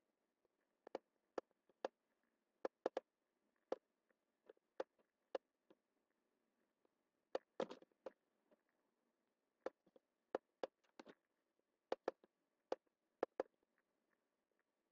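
Faint, irregular clicks of a computer mouse button, spaced anywhere from a fraction of a second to a couple of seconds apart, with a short run of clicks about halfway through, over a faint steady hum.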